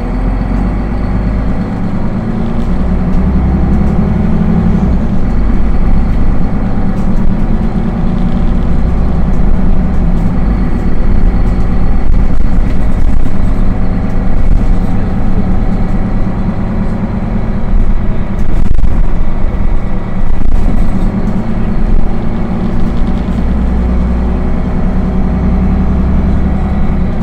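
Solaris Urbino 15 III city bus engine running as the bus drives, growing louder over the first few seconds and then holding steady with small surges.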